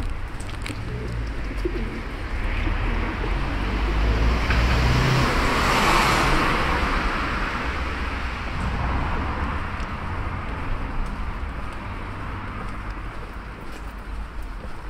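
Town street ambience: pigeons cooing, with a steady low rumble. A vehicle passes, its noise swelling and fading, loudest about halfway through.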